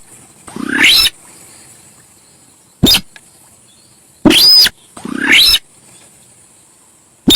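Recorded calls of a sintar sawah bird: three loud, harsh calls that sweep upward in pitch, about half a second in, around four seconds in and just after five seconds, with short sharp notes in between. A steady high-pitched drone runs underneath.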